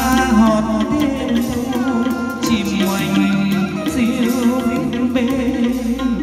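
A man singing into a microphone over instrumental backing music, amplified through a Dynacord PowerMate 600 powered mixer and Beta3 loudspeakers.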